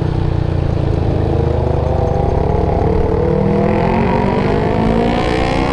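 Motorcycle engine under way, pulling harder so its pitch climbs steadily through the second half, with heavy wind rush on the microphone.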